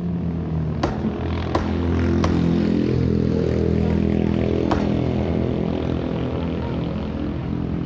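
Cleaver chopping fish on a wooden chopping block: three sharp knocks in quick succession early on and one more about halfway through. Under them an engine runs with a steady hum that grows louder about two seconds in.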